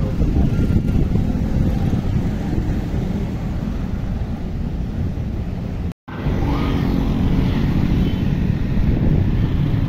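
Passing road traffic of cars, motorbikes and a bus, a steady low rumble of engines and tyres. It cuts out for an instant about six seconds in, then resumes.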